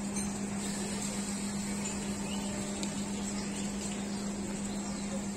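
Steady electrical hum of a standing three-phase ICF Medha EMU train, a constant low tone over a faint even hiss.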